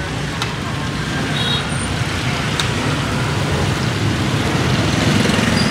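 Road traffic running past: a steady, dense engine rumble from passing vehicles, with a short high tone about a second and a half in.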